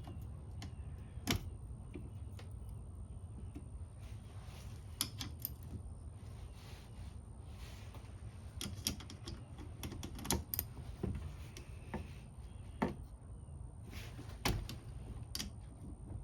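Irregular metal clicks and taps of a wrench working the bolts on a hedge trimmer's cutter bar, a dozen or so scattered sharp ticks with pauses between them, as the bolt tension is backed off and reset.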